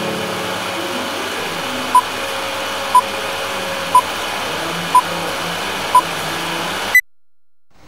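Film-leader countdown beeps over a steady hiss: a short beep once a second, five in all, then a brief higher-pitched blip near the end and a sudden cut to silence.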